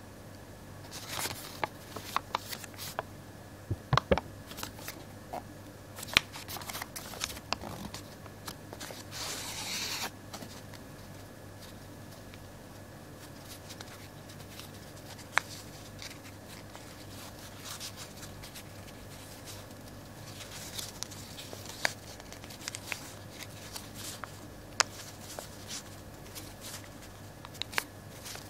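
Pleated sheet of paper being handled and folded by hand into an origami helix: scattered crisp crackles and taps of paper creasing, with a longer rustle about nine to ten seconds in. A faint steady hum runs underneath.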